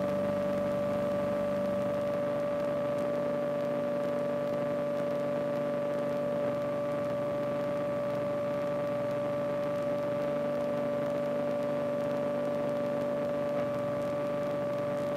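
Light aircraft in a cruise climb: a steady engine and propeller drone with a constant high hum over it, as picked up through the headset intercom.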